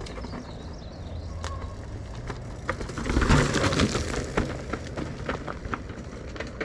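Mountain bike rolling down a rock roll: tyres rumbling over rock with scattered clicks and rattles, and a louder rush of noise about three seconds in.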